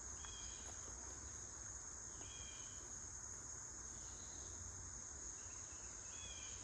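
Steady, high-pitched insect drone, with three short chirps about two seconds apart and a faint low rumble underneath.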